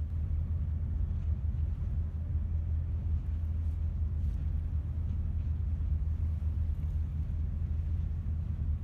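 Steady low drone of the Marine Rouge cruise boat's engine, heard on board while the boat is underway.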